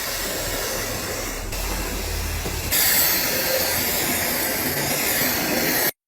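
Steady hiss of compressed air from an air tool. It steps louder about two and a half seconds in and cuts off abruptly near the end.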